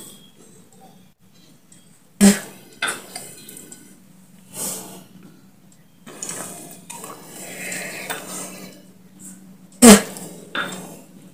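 A small dish or glass being handled, clinking and knocking. There are two sharp, loud knocks, one about two seconds in and one near the end, with smaller clicks and soft rustling between.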